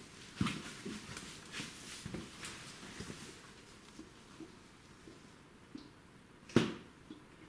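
Irregular scrapes and knocks of a caver's clothing, boots and gear against rock while clambering through a narrow cave passage, busiest in the first few seconds, with one sharp knock near the end.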